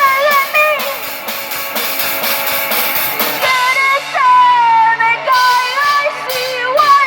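Rock band playing live: a wavering, pitch-bending melody line over held low notes, with drum hits in the first few seconds.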